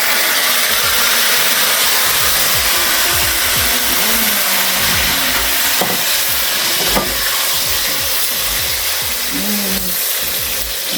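Garlic frying in hot oil in a pan, a steady loud sizzle.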